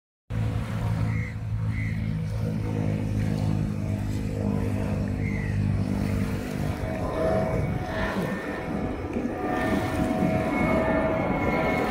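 Jet airliner approaching overhead: a steady low hum, then from about seven seconds in a growing rush of engine noise with high whining tones, getting louder towards the end.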